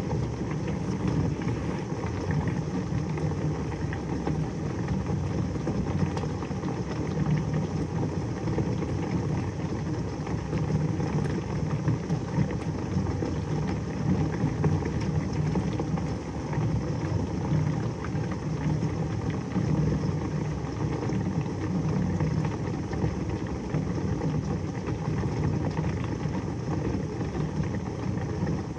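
Heavy rain pouring down steadily, an even unbroken rush.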